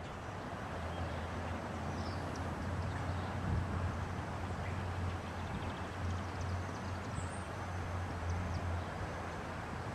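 Diesel locomotive idling with a steady low rumble, while birds chirp faintly.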